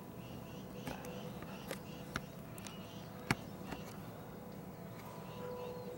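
Several sharp clicks and taps, about five, the loudest a little over three seconds in, over a faint steady hum and low background noise.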